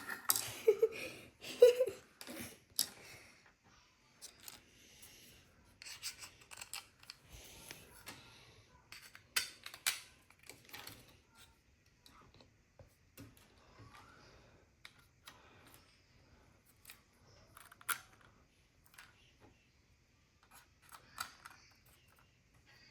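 Small plastic parts of a toy lock-box kit being handled and fitted together: scattered clicks, snaps and rubbing, busiest in the first few seconds, with a single sharp click about three-quarters of the way through.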